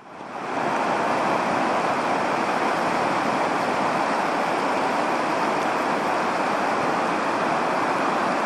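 A river in flood rushing past: a steady, loud wash of fast, turbulent muddy water.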